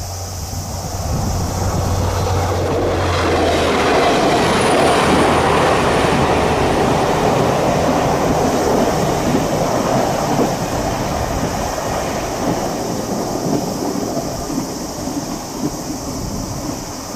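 A train crossing a steel railway bridge, with wheel rumble and clatter on the girders. A low hum at first gives way about three seconds in to the rumble, which peaks and then slowly dies away.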